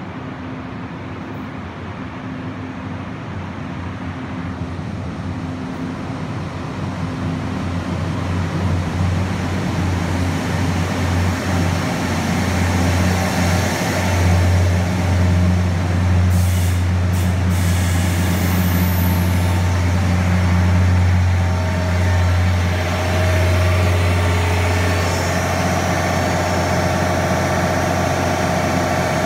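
Taiwan Railways DR3100 diesel multiple unit pulling into a station platform: the low drone of its diesel engines grows steadily louder as it approaches and runs past. A brief hiss comes about two-thirds of the way through, and after it stops a steady higher tone is heard with the engines idling.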